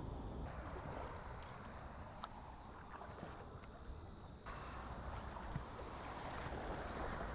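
Kayak paddle strokes: water swishing and dripping off the paddle blades in two long stretches, one beginning about half a second in and one about four and a half seconds in, over a low wind rumble on the microphone.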